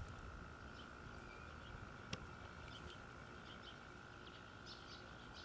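Faint outdoor ambience: scattered short bird chirps over a steady faint high tone, with a single click about two seconds in.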